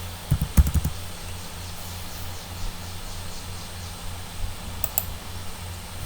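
A quick run of computer keyboard keystrokes about half a second in, and a faint double click near the end, over a steady low electrical hum.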